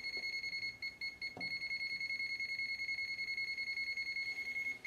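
A ZOYI ZT-300AB multimeter's buzzer beeps rapidly at about ten beeps a second, a high steady tone, in non-contact voltage (NCV) mode. This is the alert that the meter's sensor is picking up a live AC voltage. There are two faint knocks early on.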